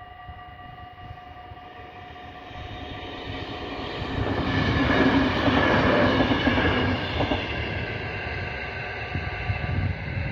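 NS Mat '64 electric multiple unit passing over a level crossing. It grows louder and is loudest from about four to seven seconds in, then fades. The crossing's electronic warning bells ring steady tones throughout, and the lower tones stop near the end.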